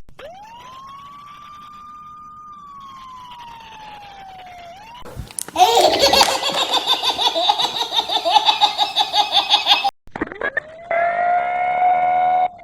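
A sequence of edited fire truck siren sound-effect variations: first a faint single siren wail that rises and then slowly falls, then a loud, rapidly pulsing, distorted siren with many overtones, then a rising wail under a steady horn-like chord near the end.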